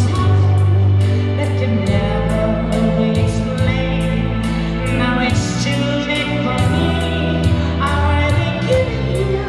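A singer sings live into a handheld microphone over amplified accompaniment with sustained bass and a steady beat.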